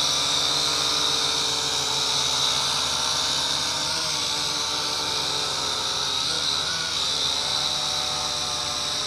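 Huanqi HQ H899 quadcopter's four motors and propellers whining steadily while it hovers and drifts close by, a high-pitched buzz with several tones that shift a little.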